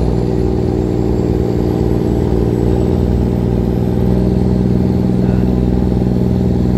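Fishing boat's diesel engine running steadily under way, a constant hum of several steady tones, one of which grows stronger about halfway through. Water rushes along the hull beneath it.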